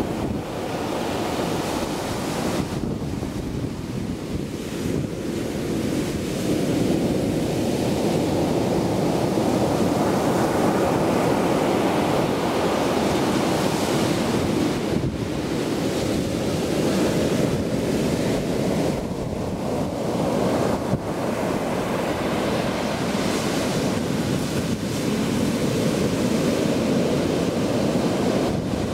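Heavy post-typhoon storm surf breaking and washing up the shore: a continuous low rush that grows louder a few seconds in and keeps surging, with wind buffeting the microphone.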